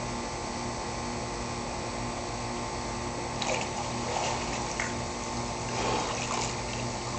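Pool water splashing and sloshing in a few irregular bursts as a man pushes himself up out of a swimming pool, over a steady mechanical hum.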